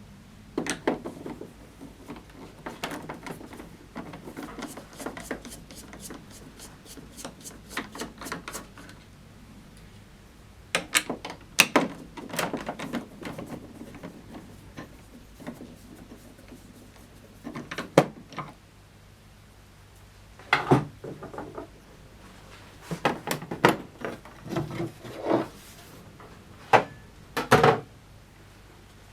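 Hand work on a Jura Z5 coffee machine during disassembly: irregular clicks, knocks and scraping of tools and plastic parts. A quick train of small clicks runs through the first several seconds, and louder knocks come in clusters later.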